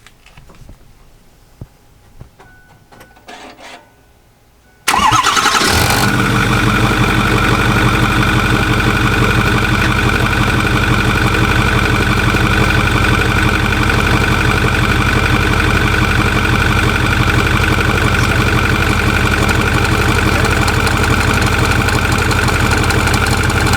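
Ford F350 turbo diesel engine starting about five seconds in, then idling steadily, with a steady high whine over the idle. The truck has made this noise since its belt pulleys were changed, and the belt tensioner is the suspect.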